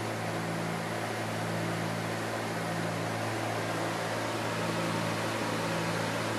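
Steady cabin drone of a Cessna 310Q's twin piston engines and propellers at cruise power, a low hum under a constant rushing hiss, heard from inside the cockpit.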